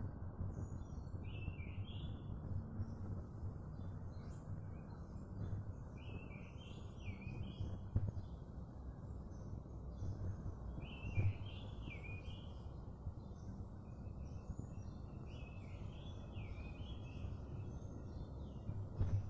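Small birds chirping in short clusters of twittering calls every few seconds, over a steady low rumble of background noise.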